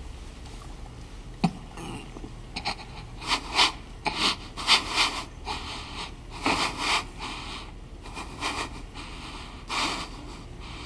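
Ragged breathing with sniffs and gasps in irregular bursts, starting about a second and a half in, thickest in the middle and once more near the end.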